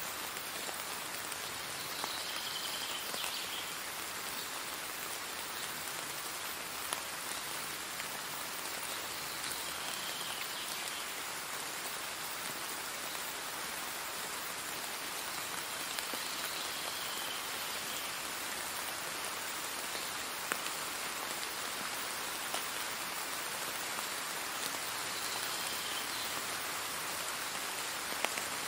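Steady rain falling, an even hiss with a few sharp drop ticks scattered through it.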